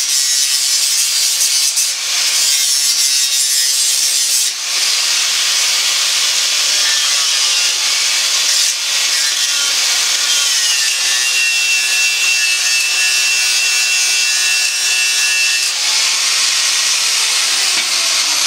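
Power tool grinding on metal: a loud, continuous high hiss with a whining tone that shifts in pitch, briefly dipping a few times as it bites.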